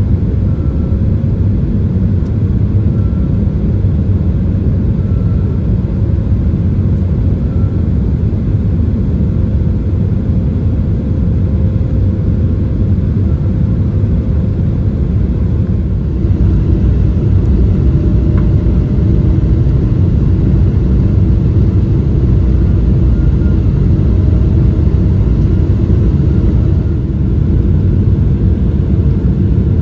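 Inside the cabin of a Boeing 777-300ER on approach with flaps extended: a steady low rumble of airflow and GE90 jet engine noise. It gets slightly louder about halfway through.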